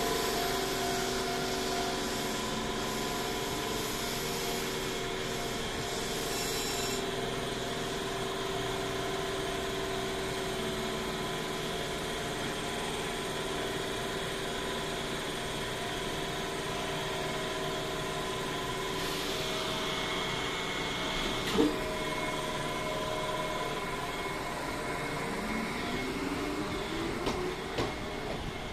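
Shizuoka Railway 1000 series electric train standing at the platform, its onboard equipment humming steadily with several level tones. A single sharp clack comes about two-thirds of the way through, and near the end a rising whine begins as the train starts to pull away.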